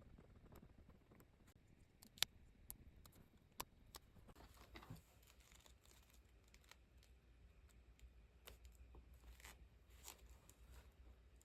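Quiet desk work with paper and stickers: scattered sharp clicks and taps, the loudest about two seconds in, with brief rustles of paper and stickers being handled.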